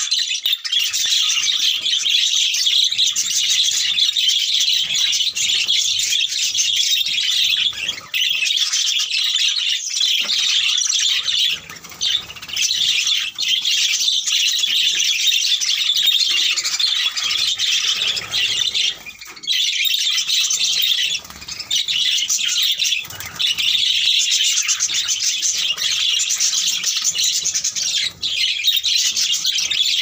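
A large flock of budgerigars chattering, many high-pitched chirps and squawks overlapping without a break apart from a few brief lulls.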